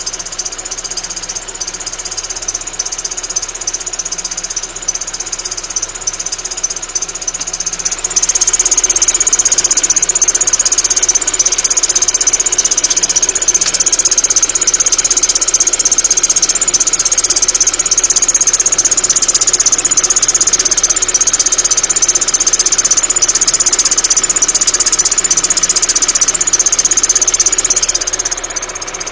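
Opel Frontera's X22XE four-cylinder petrol engine idling while its drive belt gives off a high, steady whistle. The whistle gets much louder about a quarter of the way in and drops back near the end. It comes from the belt walking on the tensioner pulley because of runout in the crankshaft pulley.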